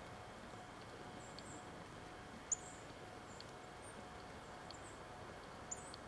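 Quiet outdoor ambience with faint, short, high-pitched chirps of small birds scattered throughout. Two sharp taps, a loud one about two and a half seconds in and a lighter one near the end, come from a red-bellied woodpecker's bill pecking at seed on the snowy log.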